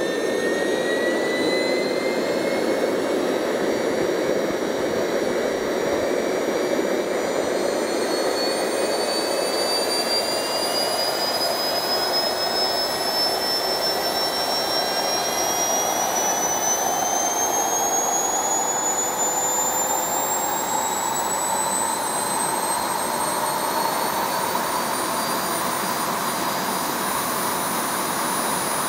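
Small turbojet engine with a see-through case running: a steady rushing roar with a high turbine whine that climbs slowly and evenly in pitch as the engine spools up.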